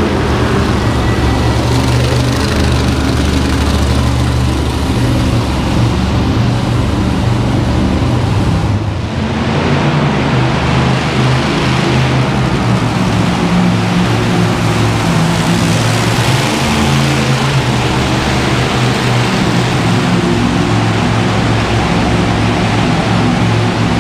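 Monster truck engines running loud and steady as the trucks drive around a dirt arena track, with a short dip in level about nine seconds in.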